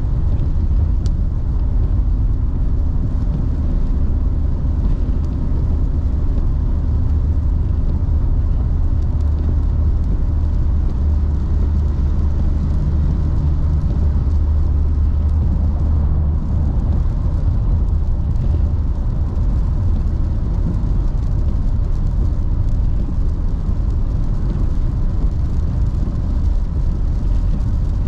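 Car driving at highway speed on a wet road, heard from inside the cabin: a steady low rumble of engine and tyre noise.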